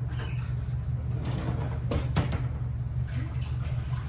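Kitchen handling noise: a sharp knock about two seconds in, with a fainter knock a little later, over a steady low hum.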